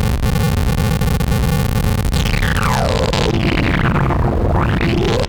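Djupviks Mörser Wasp-style synth filter processing its own clocked digital noise with some resonance: a gritty, rapidly clicking buzz. About two seconds in, the cutoff is swept down, so a resonant whistle glides from high to low, then rises again near the end.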